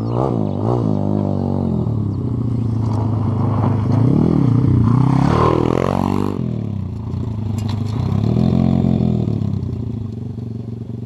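Pit bike's YX 140 cc single-cylinder four-stroke engine revving as the bike rides past, rising to its loudest about five seconds in and falling away just after six, then revving up again near the nine-second mark.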